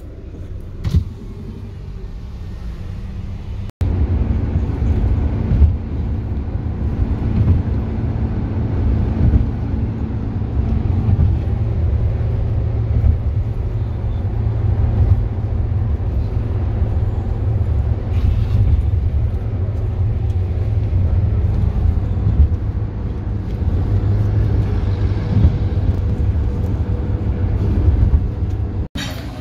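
Steady low rumble of road and engine noise inside a moving Toyota car's cabin at highway speed. The sound breaks off for an instant about four seconds in and comes back louder.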